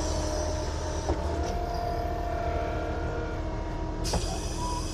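Bulldozer engine running steadily as the machine works a dirt pile, with a brief clatter about four seconds in.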